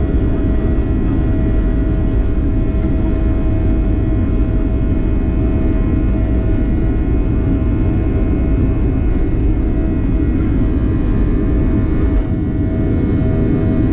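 Boeing 737 jet engines running at take-off power, heard from inside the cabin: a steady, loud rumble with a steady whine above it.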